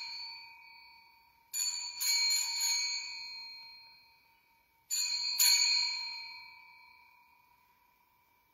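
Altar bells rung at the elevation of the chalice during the consecration, the signal of the elevation. Two shaken peals, about a second and a half and five seconds in, each a few quick strikes that ring on and fade slowly, following the fading ring of a peal just before.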